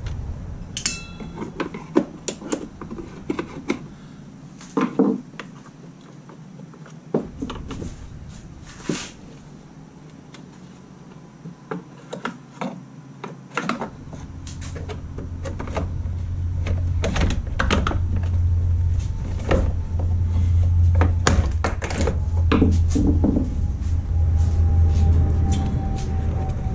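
Clicks, taps and knocks of the plastic housing of a Homelite corded electric chainsaw as it is handled and taken apart by hand. A low rumble swells in the background over the second half.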